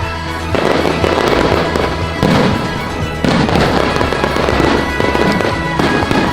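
Fireworks display: dense crackling and popping of bursting shells, with fresh volleys setting in about half a second, two seconds and three seconds in, over music playing.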